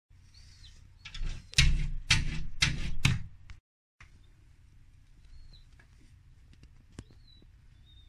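Five loud knocks about half a second apart, then quiet with a small bird chirping a few times.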